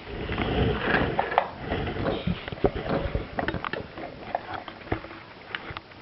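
Small plastic toy figures and parts of a plastic toy fridge playset being handled: irregular clicks and clatter, with a rumble of handling noise in the first few seconds.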